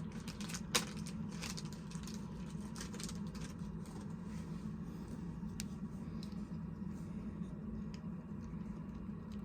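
Small plastic action-figure parts being handled: one sharp click about a second in, then scattered faint ticks and taps, over a steady low hum.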